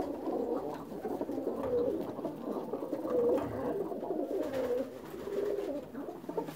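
Several domestic pigeons cooing in a small wooden loft, their low, wavering coos overlapping continuously.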